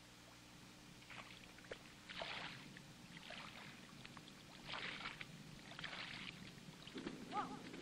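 Faint footsteps splashing through shallow water, four soft splashes a second or so apart, over a steady low hum. Near the end comes a brief rising-and-falling call.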